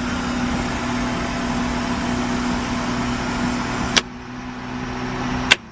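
Starter motor cranking a forged Toyota 5E-FE four-cylinder with its spark plugs out, to build oil pressure before the first start: a steady whine. About four seconds in there is a click and it drops to a quieter hum, then another click shortly before the end and it stops.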